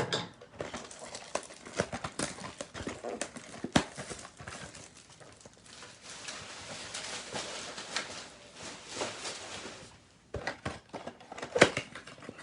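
A trading-card blaster box being opened by hand and its foil packs taken out: irregular crinkling of wrapping and packs, with taps and clicks of cardboard and a few sharper knocks.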